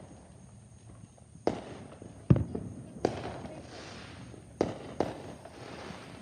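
Fireworks going off: about five sharp bangs, the loudest a little past two seconds in, with a hiss trailing after the later ones.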